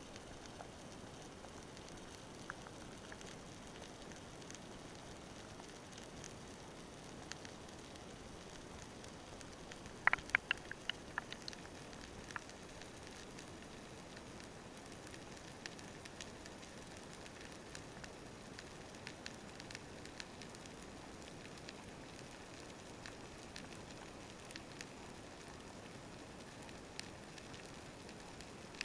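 Underwater sea ambience: a steady hiss dotted with small crackling clicks, with a quick run of sharper clicks about ten seconds in.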